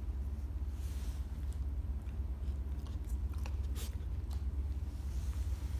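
Puppy chewing and mouthing a toy: scattered short clicks and crunches over a steady low hum.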